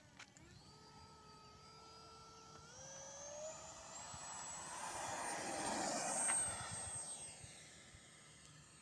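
Electric ducted fan of a foam RC Viper Jet (55 mm, 12-blade) whining at full throttle on its takeoff run. The pitch steps up about three seconds in, the whine grows louder to a peak about six seconds in, then fades with a falling pitch as the jet climbs away.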